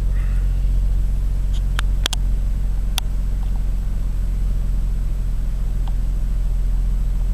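Steady low rumble of a car, as heard inside the cabin while driving, with a few sharp clicks about two and three seconds in.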